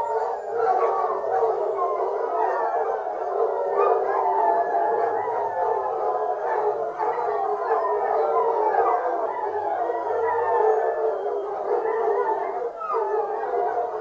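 A pack of foxhounds in full cry, many hounds howling and baying over one another in a continuous chorus, the 'singing' of hounds on a fox hunt.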